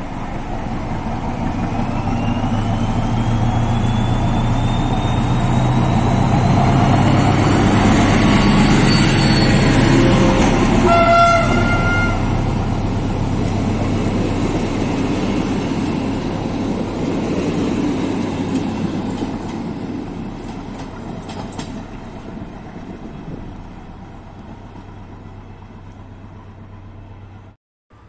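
Diesel locomotive hauling passenger coaches past: the engine runs with a steady low drone and a whine that rises over the first several seconds, and a short horn toot sounds about eleven seconds in. The coaches then roll by and the sound fades away.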